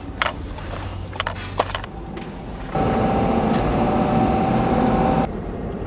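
Low hum of a pickup truck's cab with a few light clicks. About three seconds in, a louder steady running noise with a held whine comes in suddenly and cuts off just as suddenly about two and a half seconds later.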